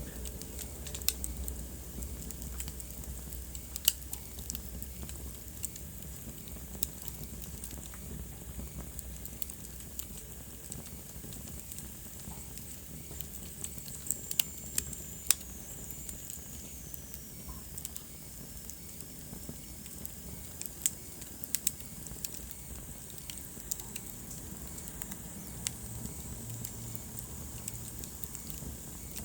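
Wood fire burning in a fireplace, crackling steadily with scattered sharp pops over a low hiss. Midway, a faint high whistle slides down in pitch.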